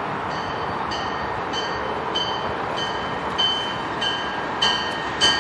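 Approaching passenger train on an electrified main line: a steady rushing rumble with a bell ringing about every 0.6 s, the strikes growing louder as it nears.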